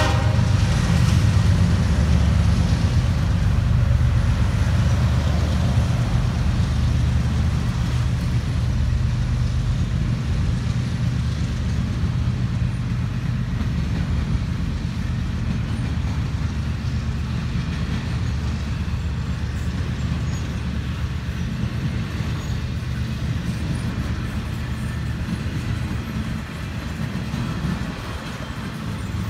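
Double-stack intermodal freight train rolling past: a steady low rumble of the cars' wheels on the rails, with a low engine drone that fades over the first several seconds. The rumble eases slowly as it goes on.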